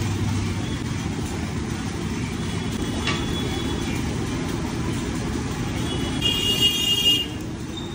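Steady low rumble of road traffic and street noise, with a short high-pitched tone lasting about a second near the end.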